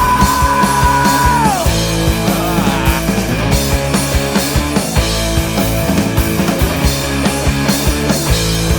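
Rock band playing an instrumental passage: distorted guitars, bass and drums in a steady beat. At the start a long held high note slides down and ends about a second and a half in.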